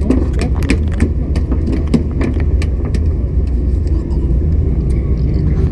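Fishing boat's engine rumbling steadily, with scattered sharp clicks and taps from handling on deck in the first few seconds as a caught fish is picked up.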